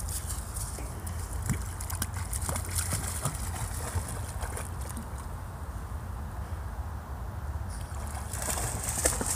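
A dog splashing as it wades through shallow creek water, a quieter lull in the middle, then sloshing again near the end as it swims out. A steady low rumble sits underneath throughout.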